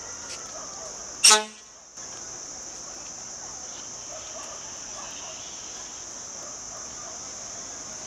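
A Toshiba electric train's horn giving one short, loud toot about a second in, the signal as the train pulls out of the station.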